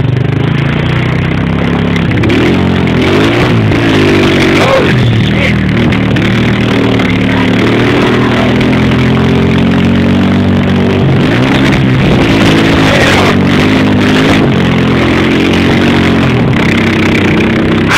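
Engine of the towing vehicle revving up and down again and again, its pitch rising and falling every few seconds, over a steady rushing noise.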